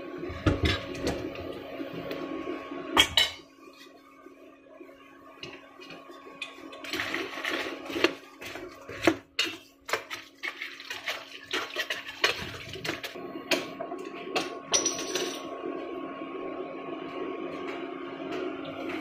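A metal fork clanking and scraping in a stainless steel pot of crablets, the crab shells clattering against each other and the pot in irregular knocks. The loudest clank comes about three seconds in. A steady hum runs underneath.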